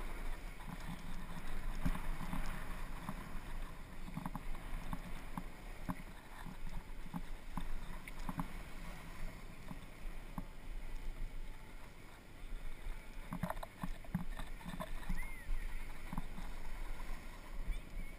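A board sliding over packed, tracked-up snow: a steady scraping hiss with irregular knocks and clatters, and some wind on the microphone.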